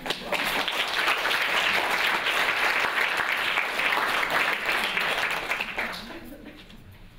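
Audience applauding: many hands clapping in a dense, steady burst that fades out about six seconds in.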